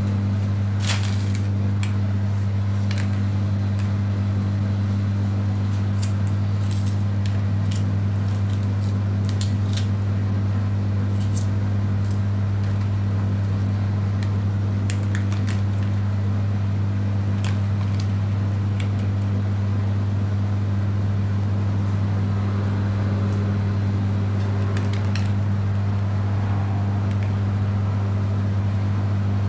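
A steady low hum runs throughout and is the loudest thing. Scattered light clicks and knocks come over it, several in the first few seconds as a red pepper is cut on a plastic chopping board.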